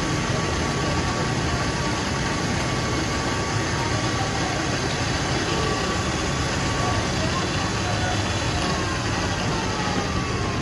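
Steady background din of a market street: a low engine-like rumble with voices faintly under it.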